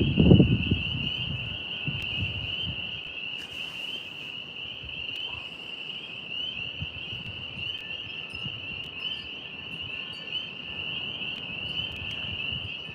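Steady chorus of night insects, a constant high pulsing trill typical of crickets. A low rumble of wind on the microphone fades out in the first couple of seconds.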